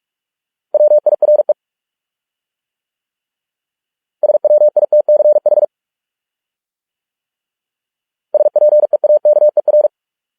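Morse code sent as a single-pitch electronic beep at 45 words per minute: three words in rapid dots and dashes, each lasting about a second or so, with silent gaps of a few seconds between them.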